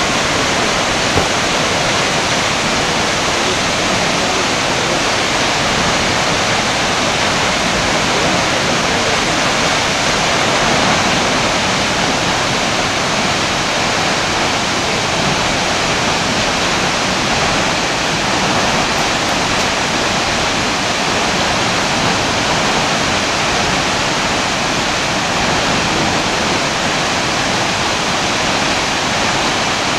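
Steady, even rush of falling water from Akaka Falls, a tall waterfall.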